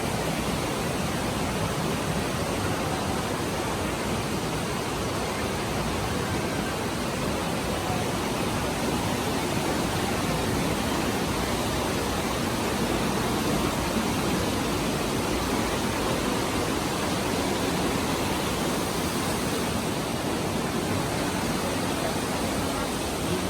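Steady rushing of a stream flowing through a cave, an even, unbroken noise with no change in level.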